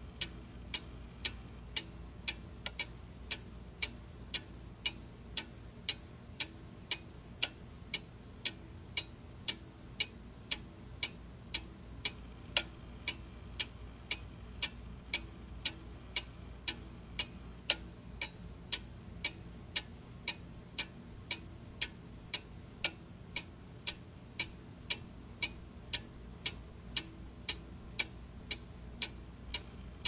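Clockwork ticking, a steady even tick about two times a second with no change in pace.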